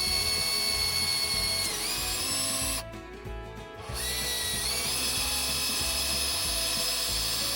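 Cordless drill boring holes into a wooden windmill shaft: two runs of a steady whine about a second apart. The motor's pitch drops as it loads up partway through the first run, and the second run winds up in pitch as it starts.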